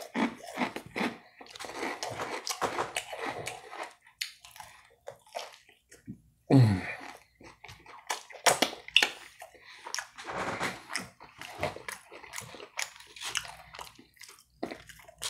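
A person chewing food close to the microphone: wet, irregular smacking and clicking mouth sounds, with a short falling hum about six and a half seconds in.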